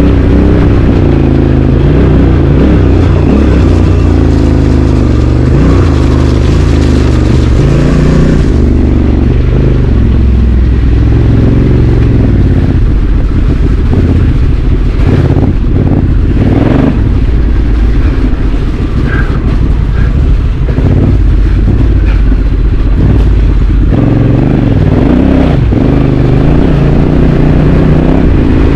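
Honda Africa Twin CRF1100 DCT's parallel-twin engine under off-road riding, revving up and down as the throttle opens and closes. A few knocks about halfway through.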